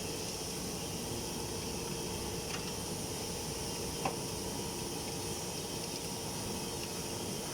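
Hydraulic metal baler's power unit running steadily, a constant hiss and hum with one sharp click about four seconds in.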